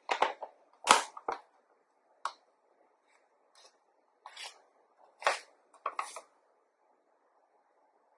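Plastic bag crinkling and rustling as glutinous rice flour is tipped from it into a stainless steel bowl: a series of short, sharp rustles and knocks, the sharpest about a second in, stopping about six seconds in.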